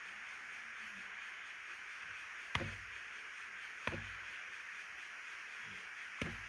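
Three sharp knocks, roughly one and a half to two and a half seconds apart, over a steady hiss.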